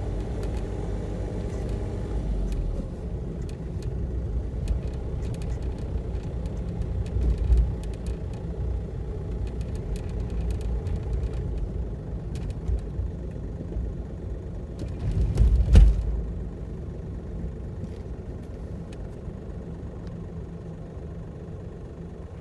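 A motor vehicle's steady low running and road rumble, with two louder low bumps, one about a third of the way in and one about two-thirds in.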